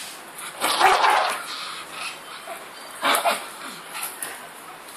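A pug play-fighting, making dog noises in two short outbursts, about a second in and again about three seconds in.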